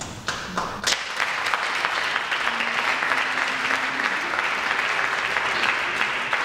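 Audience applauding, a steady patter of many hands clapping that starts within the first second.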